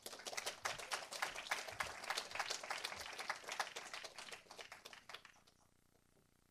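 A congregation applauding, a dense patter of many hands clapping that dies away about five seconds in.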